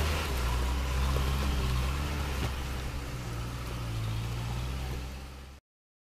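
Engine of a MAESA artillery-towing military truck running steadily with a low hum. It fades briefly, then cuts off abruptly near the end.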